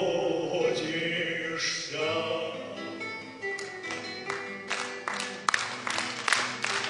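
A man singing into a microphone over an instrumental accompaniment. About halfway through, the audience starts clapping, and the claps grow into applause near the end.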